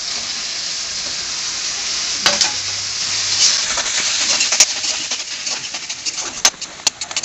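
Chopped onions and tomatoes sizzling in hot oil in a kadai while a metal spatula stirs them, a steady hiss. From about two seconds in, the spatula scrapes and clicks sharply against the pan, a few louder knocks near the end.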